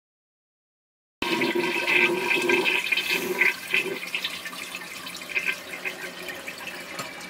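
Toilet flushing: a loud rush of water that starts abruptly about a second in and gradually eases.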